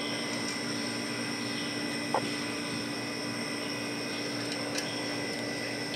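Steady mechanical hum with a faint high whine, with a light metal click about two seconds in and a softer one near five seconds as the handlebar clamp hardware is worked by hand.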